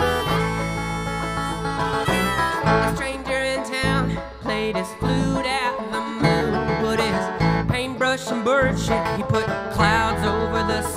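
A live folk band playing a song on plucked string instruments, here an instrumental stretch without singing.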